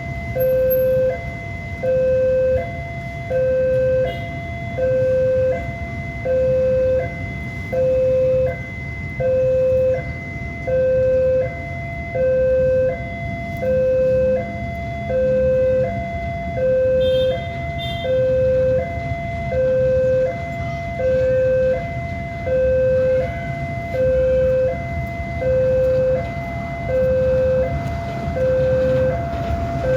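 Two-tone hi-lo siren steadily alternating between a lower and a higher note, each held under a second, over a low rumble.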